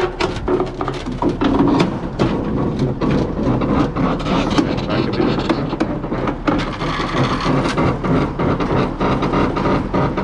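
A heavy machine's engine running steadily, with repeated sharp metal clanks and knocks over it.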